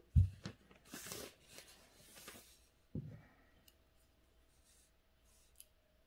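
Handling noises on a calligraphy desk: a dull thump, a few soft rustles, and a second knock about three seconds in, then only faint ticks.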